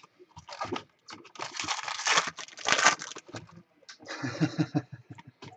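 Foil wrapper of a Bowman Chrome trading card pack torn open and crinkled, in two spells of rustling: a long one from about a second in and a shorter one about four seconds in.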